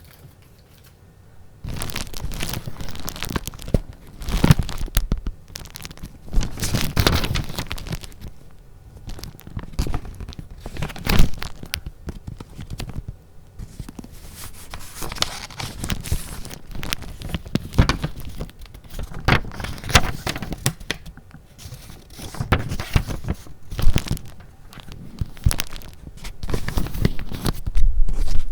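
Paper being handled close to the microphone: rustling, crinkling and tearing-like sounds in irregular bursts, starting after a quiet first couple of seconds.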